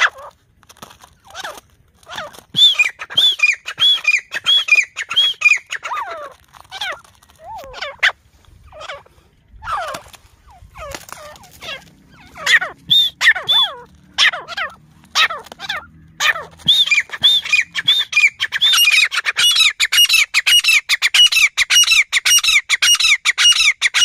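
Grey francolins calling: runs of sharp, ringing rising-and-falling notes in several bouts, packing into a rapid, continuous series over the last few seconds. This is the loud challenge call that rival francolins use when squaring up to fight.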